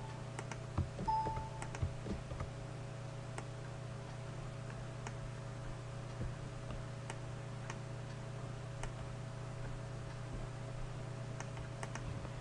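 Scattered computer mouse and keyboard clicks, several in the first two seconds and then only the odd one, over a steady electrical hum, with a short beep about a second in.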